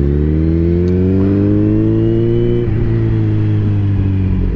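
Kawasaki Z900's inline-four engine accelerating under load, its pitch climbing steadily, then dropping at an upshift a little under three seconds in and pulling on at an even pitch, over wind noise.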